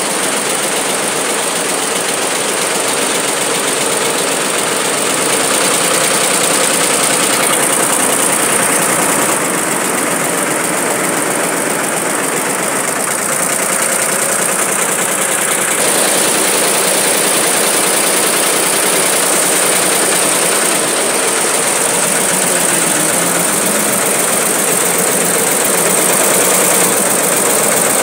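Multi-head computerised embroidery machine with sequin attachments running at speed, its needles stitching sequins onto fabric. The sound is loud and steady, a dense mechanical running noise with a high hiss over it.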